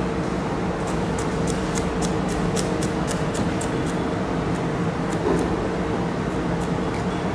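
Kitchen knife chopping garlic cloves on a plastic cutting board: light, quick taps at about four a second, then a few more spaced out later, over a steady background hum.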